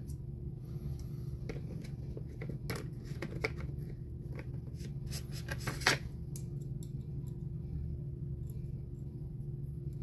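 Scattered small metallic clicks and taps from a folding knife and a small Torx driver being handled while working at a stubborn T9 screw, with one louder click about six seconds in, over a steady low hum.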